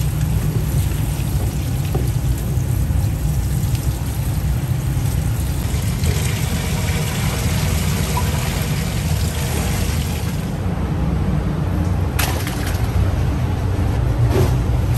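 Water from a spray-head tap rushing steadily over raw chicken feet in a plastic basket as they are rinsed. About ten seconds in the rush thins out, and a couple of sharp knocks follow near the end.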